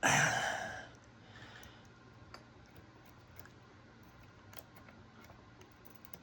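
A breathy exhale at the start, then sparse faint ticks and clicks of small lock pins and tools being handled while a Mul-T-Lock Junior lock is reassembled.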